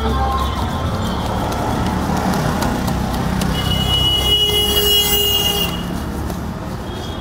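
Road traffic going by, a steady low rumble, with a high tone and a hiss for about two seconds from the middle, like a horn or a passing vehicle.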